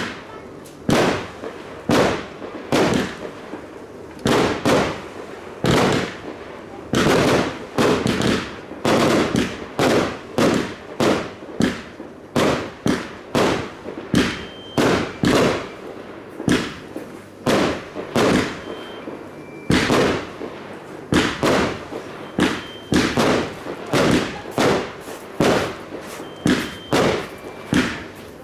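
Fireworks display: aerial shells bursting in quick succession, about one to two loud bangs a second, each trailing off briefly.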